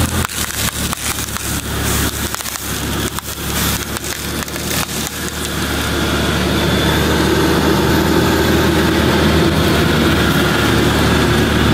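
Car tire rolling onto green floral foam bricks and crushing them: a run of crackling crunches over the first six seconds or so. Under it the car's engine runs, then idles steadily once the tire comes to rest on the broken foam.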